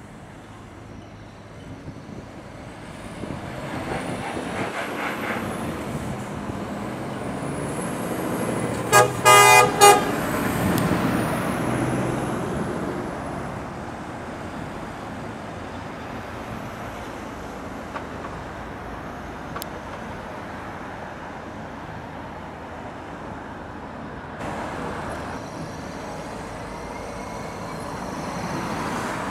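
Heavy goods trucks' diesel engines running as they pull past, with a vehicle horn tooting a few short times about nine seconds in. The engine noise builds to its loudest around the horn, then settles to a steady rumble.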